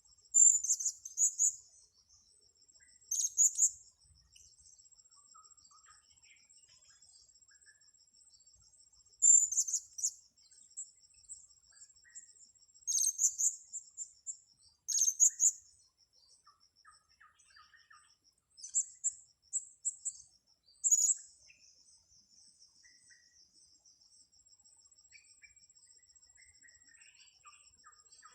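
Blue-crowned hanging parrots (serindit) giving short, shrill, very high calls in about seven bursts a few seconds apart, over a steady high-pitched insect trill.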